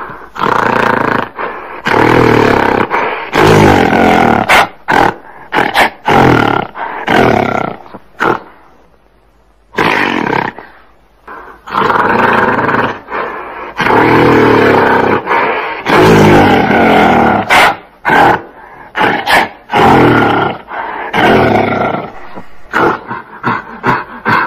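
Gorilla roaring and growling in a series of loud calls of a second or two each, with a short pause about a third of the way in and quicker, shorter calls near the end.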